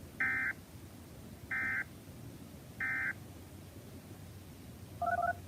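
Emergency Alert System end-of-message data bursts: three short, identical digital bursts about a second and a quarter apart, marking the end of the alert. Near the end, two short beeps.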